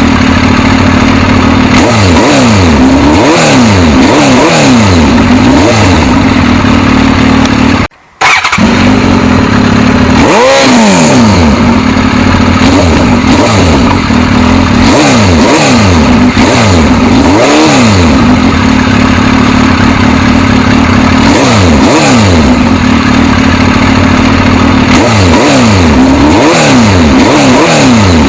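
Suzuki GSX-S1000's inline-four engine running with a steady idle-like note and repeated throttle blips, its pitch rising and falling again and again, with a brief drop-out about eight seconds in.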